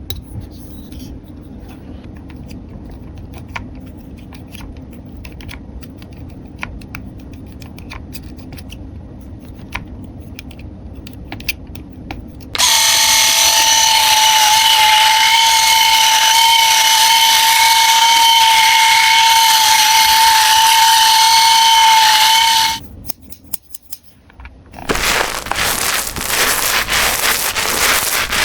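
Light clicks of plastic toys and packaging being handled. Then a small battery-powered toy motor whines at a steady pitch for about ten seconds and stops. After a short pause comes a dense run of plastic clicking and crackling.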